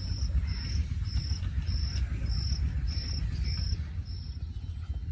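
An insect chirping: a short high note repeated roughly every half second, stopping near the end, over a steady low rumble.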